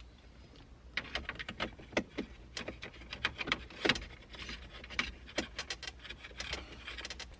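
Irregular plastic clicks, taps and rattles of a car radio and its wiring being handled and pushed into the dash opening, starting about a second in, with a couple of louder knocks.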